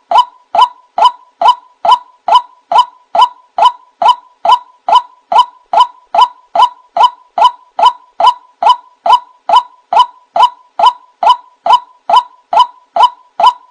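White-breasted waterhen (wak-wak bird) call used as a lure: a short 'wak' note repeated at a steady, even pace of about two a second.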